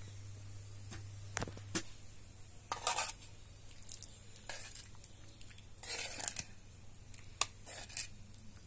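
Dishes and utensils being handled: scattered sharp clinks and a few short scraping rustles, over a faint steady low hum.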